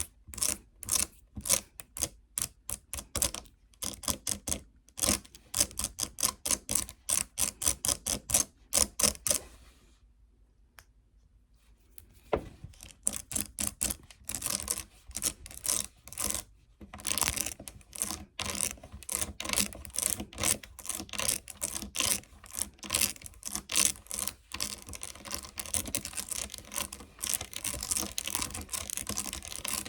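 Tapping on a phone case: quick sharp clicks, about three or four a second, stopping for a couple of seconds about ten seconds in, then going on faster and denser.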